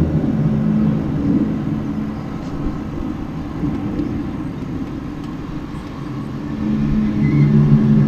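A low droning hum made of several held tones, fading somewhat in the middle and swelling back about six and a half seconds in. It is an unexplained 'strange sound' in the sky, of unknown origin.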